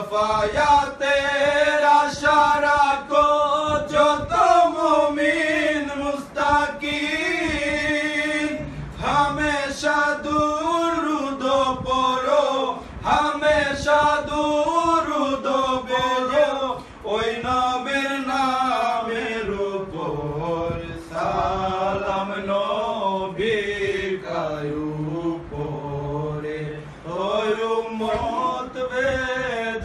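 Male voices singing a Bengali devotional jari/salam together, unaccompanied, in long wavering melodic phrases with brief breaths between them.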